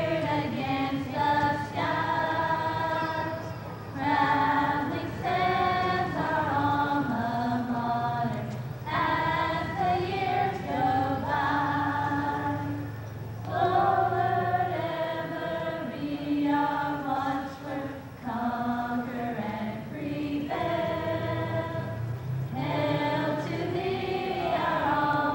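A small group of young women singing together in slow phrases of held notes, with short breaks between phrases.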